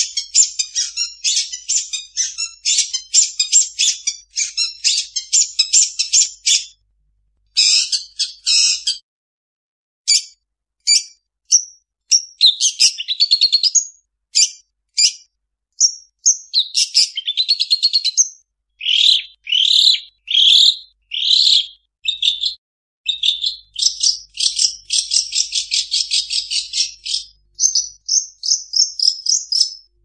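Long-tailed shrike (cendet) singing a high-pitched, rapid and varied song packed with mimicked calls of other birds, in fast chattering runs and trills broken by short pauses.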